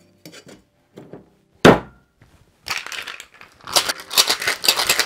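A two-piece stainless steel tin-on-tin cocktail shaker being sealed with one sharp knock about a second and a half in, then shaken hard, the ice cubes inside rattling against the metal in a fast, even rhythm.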